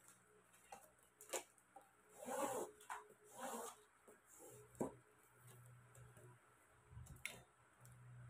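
Faint rustling and rubbing of basket-weaving strips being handled and worked, in two short spells, with a few sharp clicks in between and a faint low hum.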